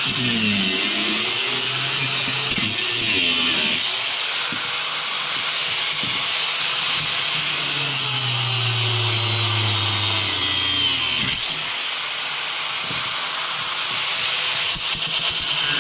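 Angle grinder cutting into a metal scrap part: a continuous high, hissing whine whose pitch wavers as the disc bites, easing off briefly about eleven seconds in.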